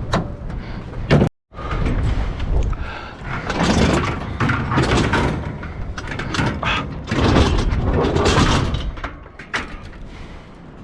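Scrap metal being handled and shifted, with scraping and several clanks, over a low rumble of wind on the microphone.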